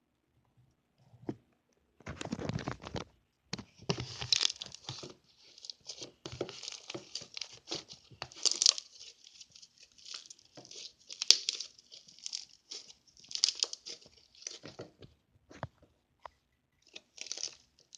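Slime being squished and worked by hand, crackling and popping in irregular clusters that start about two seconds in.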